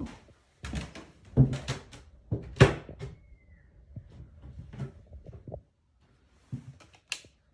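A door being handled and walked through: several knocks and thuds, the loudest in the first three seconds, with a brief squeak about three seconds in and lighter knocks after.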